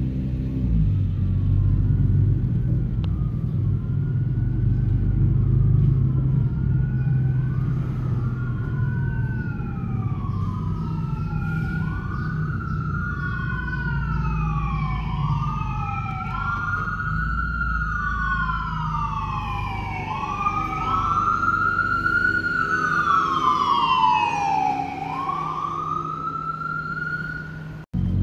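Emergency vehicle sirens wailing, each sweep rising and falling over a second or two, starting faint and growing louder, with two sirens overlapping from about halfway through. Underneath is the steady low rumble of a moving car's engine and road noise, heard from inside the car.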